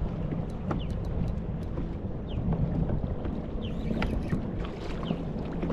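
Strong wind buffeting the microphone as a steady low rumble, with scattered sharp little clicks and taps over it.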